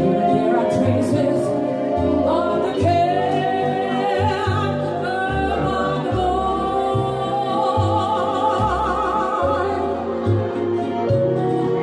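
A woman singing into a microphone over backing music with a steady bass line, holding long notes with a wavering vibrato.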